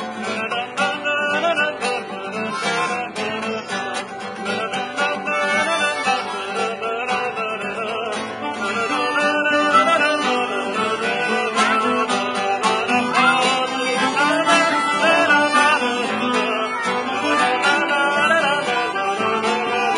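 Improvised acoustic country music: a nylon-string classical guitar and a steel-string acoustic guitar playing together. A harmonica joins in with wavering, bending notes about ten seconds in, and the music gets a little louder.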